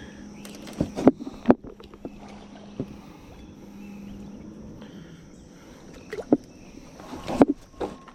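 Knocks and clunks in a small fishing boat: a handful of sharp hits in the first two seconds and again near the end, over a faint steady low hum.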